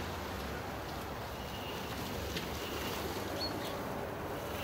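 Steady low outdoor rumble and hiss with a few short bird chirps. A Hecht 59399 electric ATV driving across grass makes no clear motor sound of its own.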